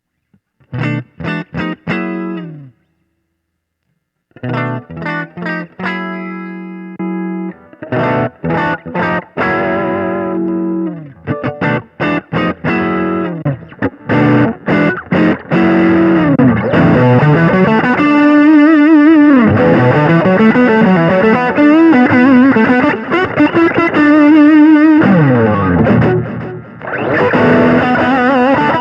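Giannini Stratosonic electric guitar played through a Sonicake Sonic IR impulse-response cabinet-simulator pedal, recorded straight into the line with no amp. It opens with a quick descending run of picked notes and a short pause, then plays riffs that build into sustained lead notes with wide vibrato and bends.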